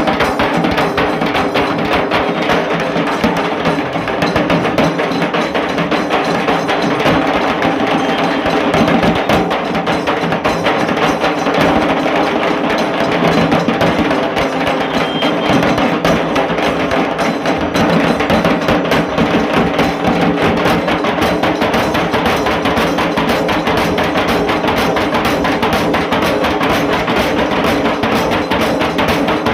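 Dhol tasa drum ensemble playing: dense, fast stick strokes on tasa drums over dhol beats, loud and without a break.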